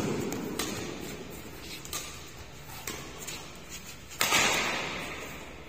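Badminton rackets striking a shuttlecock in a fast doubles rally in a reverberant sports hall, a sharp crack about once a second, with the loudest hit, an overhead smash, about four seconds in.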